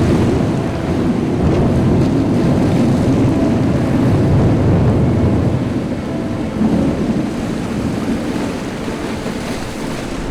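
Thunderstorm: a long, deep rumble of thunder over steady heavy rain, slowly easing off.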